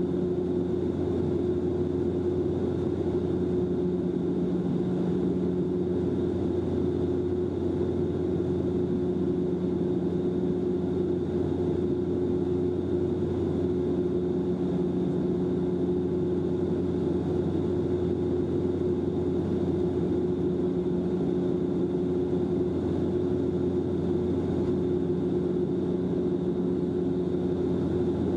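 Steady cabin drone of a Bombardier Dash-8 Q400 turboprop airliner in flight, heard inside the cabin: its Pratt & Whitney PW150A engines and six-blade propellers hum at several steady low pitches, with a faint high whine above them.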